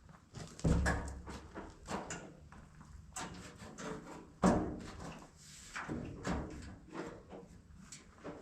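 Irregular knocks and clatters from hands-on work on farm machinery, with the loudest knocks about a second in and about halfway through.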